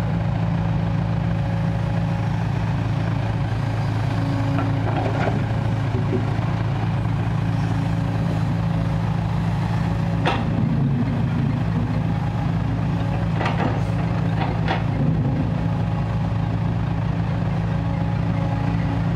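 Diesel engine of a Kobelco SK140 excavator running steadily while it works, with a few short sharp knocks, about 5, 10 and 14 seconds in.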